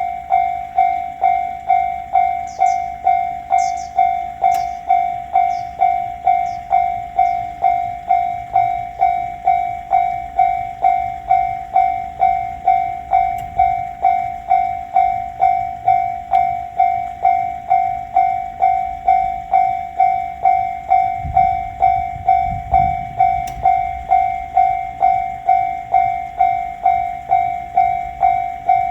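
Japanese railroad crossing warning bell ringing its steady electronic "kan-kan", about three strokes every two seconds, each stroke a single ringing tone that decays. A brief low rumble comes in about two thirds of the way through.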